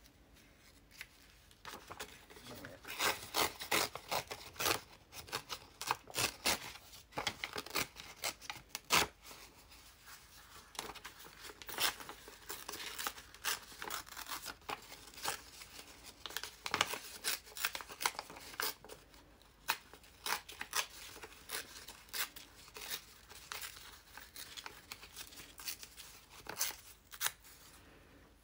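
Embossed eco-dyed paper torn by hand and rustled: a long irregular string of short sharp rips and crackles, starting about a second in and thickest in the first half.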